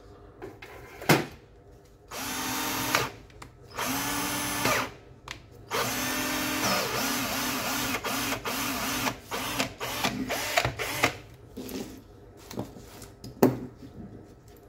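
Makita HP347DW cordless drill motor running in short bursts, each starting with a brief rising whine, then pulsing on and off about two to three times a second in a longer run. A sharp knock comes about a second in and another near the end.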